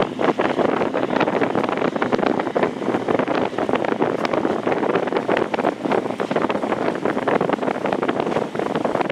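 Wind buffeting the microphone over rushing, splashing water, a steady crackling rush with no engine note standing out.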